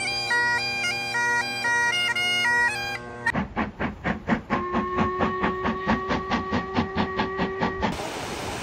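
Bagpipe music, a steady drone under a moving chanter tune. After about three seconds it cuts to a steam locomotive chuffing about five times a second, and its steam whistle sounds one long steady blast over the chuffs. Near the end this gives way to a steady rushing noise.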